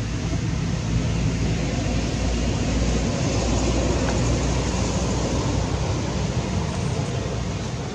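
Steady low rumbling background noise with no distinct events standing out.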